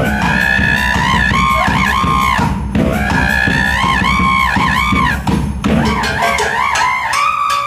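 Baritone saxophone playing bending, robot-like tones over a heavy drum beat; the beat drops out about six seconds in, leaving the saxophone on its own.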